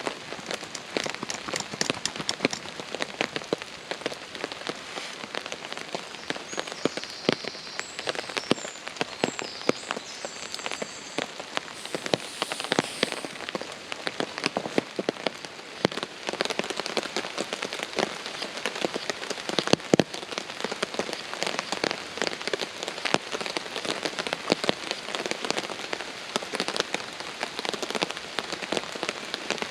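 Heavy rain falling on a tarp overhead: a dense, constant patter of drops, with one louder knock about twenty seconds in.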